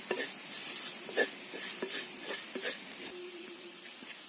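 A spoon stirring and scraping a sizzling onion and spice masala in a stone pot (kalchatti). There is a run of irregular scrapes over the first three seconds, then only the steady sizzle of the frying.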